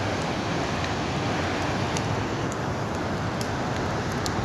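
Bonfire burning: a steady rushing noise with occasional sharp crackles and pops.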